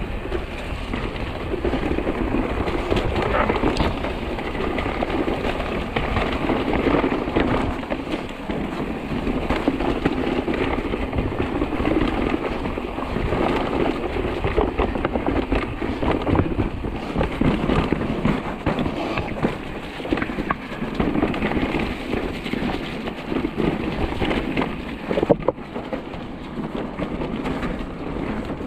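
Mountain bike riding down a trail: constant rough tyre noise over dirt and stones, with crackling rattles and knocks from the bike, and one sharp knock near the end.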